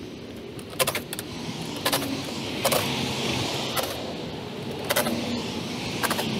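A person walking with a loaded tool belt: sharp clicks and knocks, about one a second and unevenly spaced, over a steady background hiss.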